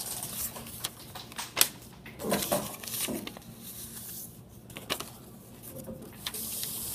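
Sheet of origami paper rustling and crinkling as hands flatten it out and press its creases, with scattered short crackles.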